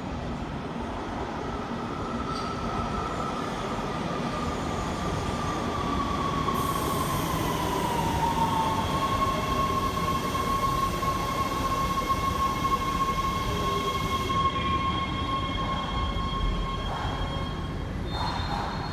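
LA Metro Rail subway train arriving at an underground platform and braking to a stop. Its rumble builds, and a whine glides down in pitch about halfway through, then holds steady. A high hiss of wheels and brakes runs for several seconds in the middle.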